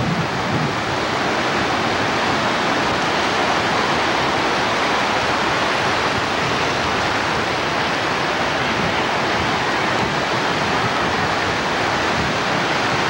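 Ocean surf breaking and washing through the shallows: a steady rushing hiss.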